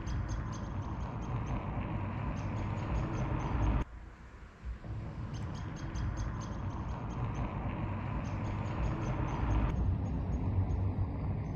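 Outdoor lakeside ambience: a steady low rumble with quick, high chirping calls repeating over it. The sound cuts out briefly about four seconds in.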